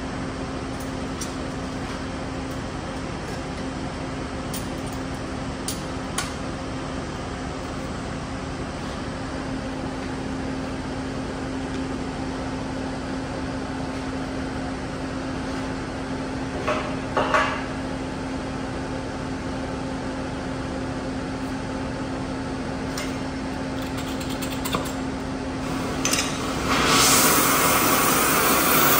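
Engine-driven welder running with a steady hum while pieces of metal clink and knock, with a cluster of knocks about halfway through. About two seconds before the end a loud, steady crackling hiss starts: a high-amperage stick-welding arc being struck and run.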